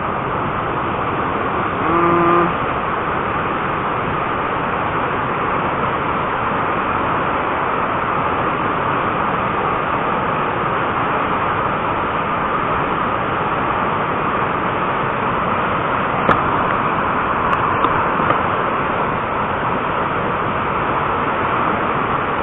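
Swollen, muddy floodwater rushing in a torrent over rocks and around tree trunks: a loud, steady rushing noise. A brief pitched sound cuts in about two seconds in.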